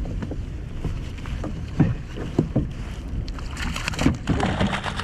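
Hard knocks against a kayak hull, then water splashing and streaming from about three and a half seconds in, as a lobster hoop net is hauled up out of the water beside the kayak. A low rumble runs underneath.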